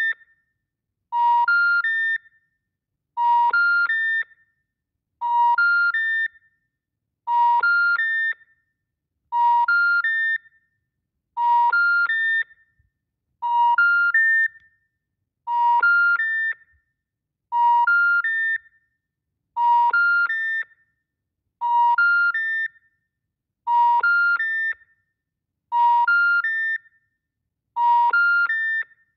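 BeMobile special information tone over a phone line: three rising tones of 950, 1400 and 1800 Hz, each about a third of a second long, then a second of silence, repeating about every two seconds. It is the intercept signal that the call cannot be completed.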